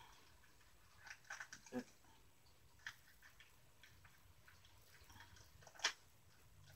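Faint handling noises of a plastic action figure being posed in the hands: a few small clicks and rustles about a second in, and a sharper single click near the end.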